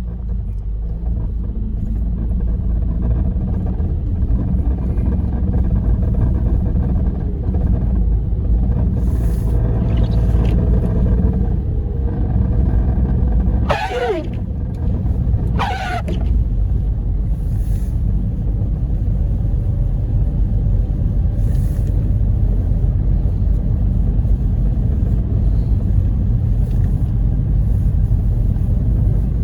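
Steady low rumble of a car driving on a snow-covered road, heard from inside the cabin. About halfway through come two short squeaks, two seconds apart, each sliding down in pitch: the windshield wiper dragging on the glass.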